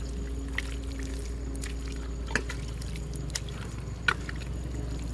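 Water sloshing and trickling, with a few sharp splashes, over a steady low rumble.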